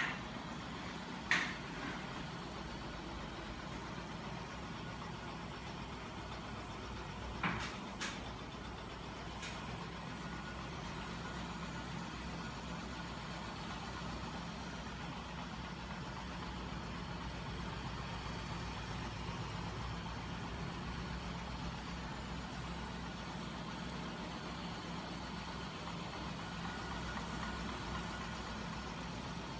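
Home-built magnet crankshaft machine, driven by a 12 V electric motor and turning 24 V scooter motors as generators, running with a steady mechanical hum and whir. A few sharp clicks come in the first ten seconds.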